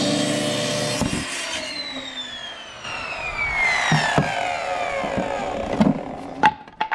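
Festool plunge track saw cutting a wood cabinet panel, then switched off about a second in. Its blade and motor wind down with a long falling whine over several seconds. A few sharp knocks come near the end.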